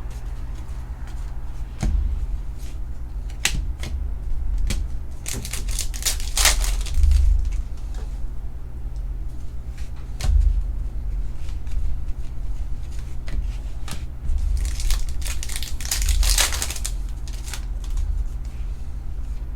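Trading card packs being torn open and cards handled: foil wrappers crinkling and ripping, loudest in two longer stretches, with scattered clicks and knocks over a steady low hum.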